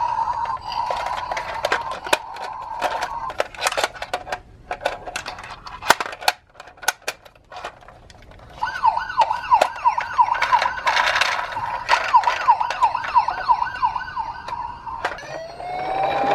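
Electronic siren sounds from toy ambulance and police minicars. A steady siren tone gives way to a run of sharp clicks and knocks, then a fast yelp warbling about three times a second, and a slower wail gliding up near the end.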